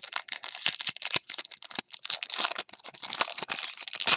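Foil trading-card pack wrapper crinkling and being torn open by hand, a dense run of crackles and rips, loudest in the second half.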